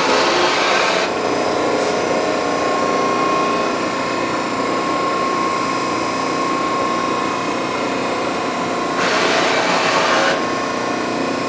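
Allsteel 20-4 hydraulic press brake's 7½ hp hydraulic power unit running with a steady hum and a thin whine. There is a louder rushing surge at the start and again near the end.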